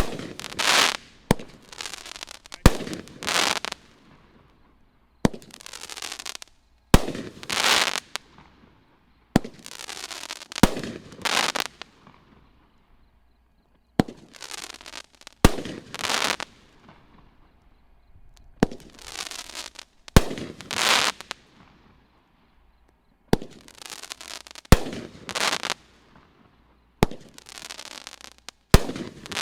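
Consumer fireworks cake firing shot after shot. Each shot is a sharp report followed by about a second of loud crackling hiss that fades out. Shots come every second or two, with short lulls about twelve and twenty-two seconds in.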